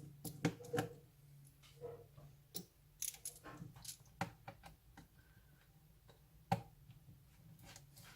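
Irregular small clicks and taps of a laptop's plastic and metal parts being handled during disassembly, the loudest about six and a half seconds in, over a faint steady low hum.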